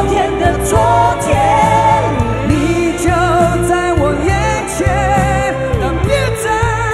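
Mandarin pop ballad sung by male and female singers with a live band: sustained vocal lines with vibrato over steady drums and bass.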